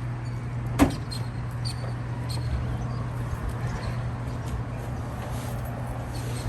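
A steady low mechanical hum, with one sharp click a little under a second in.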